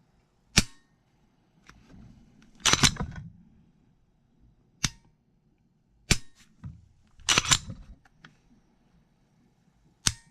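Sharp clicks and snaps of a Glock 21 pistol's parts being fitted back together, about six at uneven intervals, two of them quick clusters.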